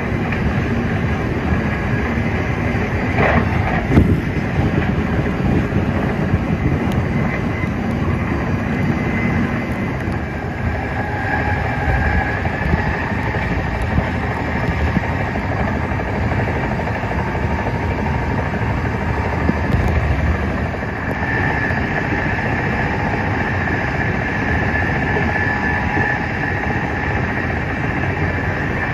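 Passenger train running at speed: a steady rumble of wheels on rail with faint whining tones over it, and one sharp knock about four seconds in.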